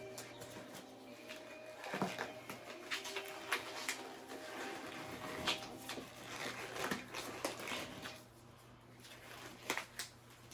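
Rustling and scattered short clicks of disposable gloves being pulled onto hands, over a faint steady hum.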